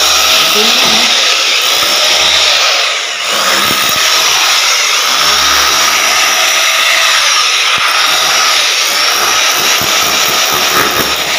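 Power tool running loudly and continuously, easing briefly about three seconds in.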